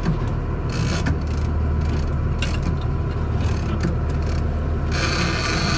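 Boat engine running with a steady low drone, under the mechanical clicking and scraping of a big-game fishing reel under load from a hooked bluefin tuna. A burst of hiss comes about five seconds in.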